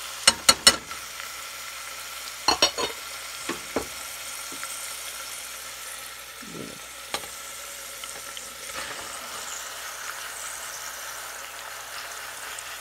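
Sharp clinks of a bowl and utensil against an open steel pressure cooker as chopped tomatoes, garlic and onions are tipped in on top of raw ground meat: several knocks in the first four seconds and one more about seven seconds in, over a steady hiss.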